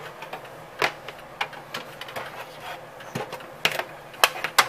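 Irregular clicks and knocks from hard objects being handled and pushed into place, several sharper ones near the end.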